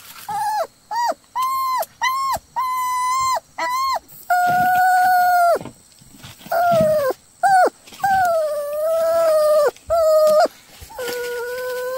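Puppy whining and crying: a run of high-pitched cries, short and quick at first, then longer drawn-out ones.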